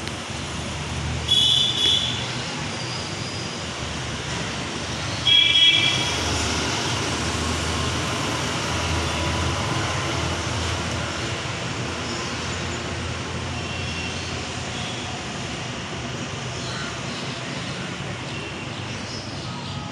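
Steady road traffic noise with vehicle horns honking: two quick toots about a second in, and another honk around five seconds in.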